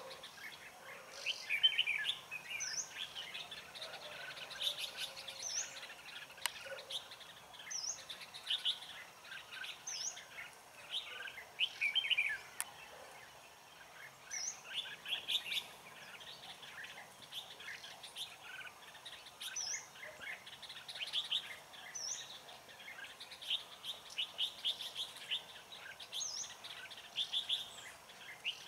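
Red-whiskered bulbuls singing: short, bright warbled phrases every second or two, the challenge song of a caged decoy bulbul luring a wild one to a trap. A short high note repeats every couple of seconds alongside.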